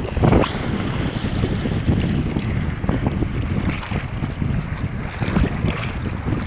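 Wind buffeting a low-mounted action-camera microphone, with choppy lake water splashing and slapping around the camera; a louder splash comes about half a second in as the kiteboard skims past.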